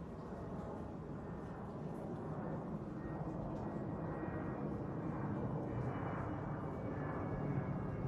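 Jet airliner flying overhead: a steady rushing engine noise with a faint high whine, growing slowly louder.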